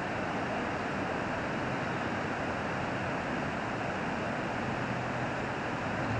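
Steady rushing outdoor noise, even throughout, with no distinct events.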